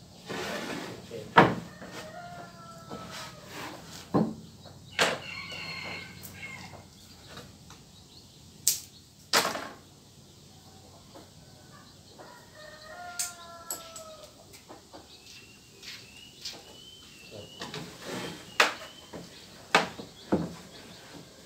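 A rooster crowing, about two seconds in and again about thirteen seconds in, among sharp knocks of wooden planks being handled and set down.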